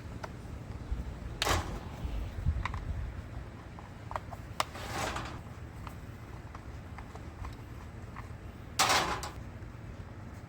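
Workbench handling of a string trimmer being taken apart: scattered clicks and knocks of tools and plastic housing parts, with three brief louder noises, the last one near the end the loudest.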